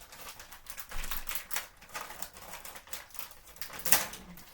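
Plastic candy packaging being handled: a run of irregular clicks and crinkles, with one louder click about four seconds in.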